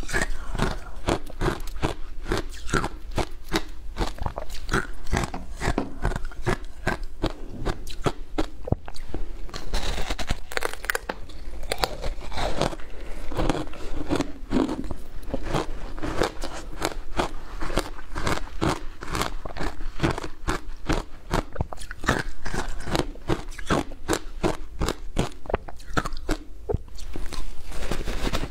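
Packed shaved ice coated in passion fruit pulp being bitten and chewed, picked up close: a dense, irregular run of crisp crunches without a break.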